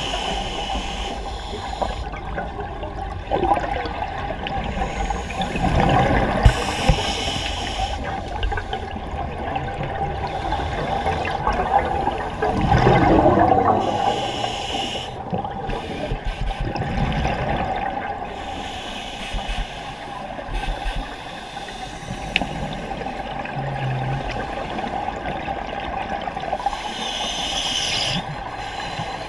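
A scuba diver breathing through a regulator underwater: gurgling surges of exhaled bubbles come every few seconds, some with a sharper hiss, over a faint steady hum.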